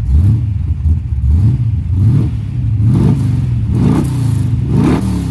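Ford Maverick V8 engine revved in a series of quick throttle blips, each one rising and falling, about one a second. The blips grow stronger in the second half.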